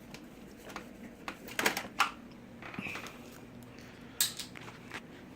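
Handling noise from a cheap electric siren horn being turned over in the hands: a few scattered light clicks and knocks, the sharpest about four seconds in, with the siren itself silent.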